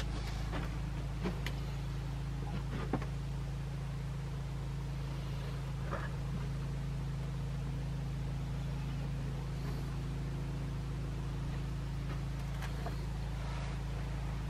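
Steady low mechanical hum, with a few light clicks and knocks in the first three seconds.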